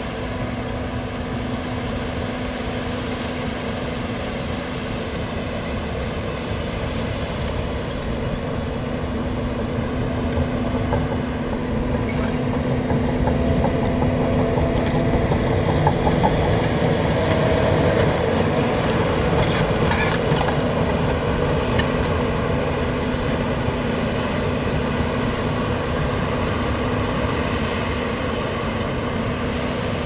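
John Deere 850K crawler dozer's diesel engine working as it pushes sand, with the clatter of its steel tracks. It grows louder toward the middle as the dozer comes nearer, then eases off.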